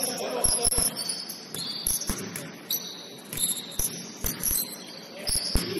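A basketball bouncing on a hardwood gym court, about ten uneven thuds, mixed with short high-pitched squeaks of sneakers on the floor.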